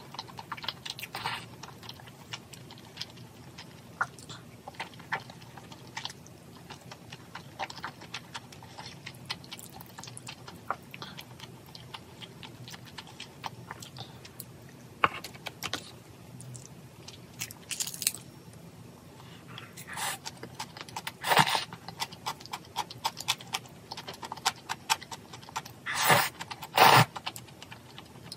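A person eating: utensils clicking against the dishes and chewing, many small sharp clicks with a few louder clinks in the second half.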